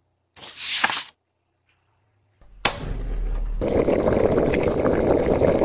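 A short whoosh, then after a pause a sharp knock and a covered pot over a fire coming to the boil: steady bubbling with many small pops.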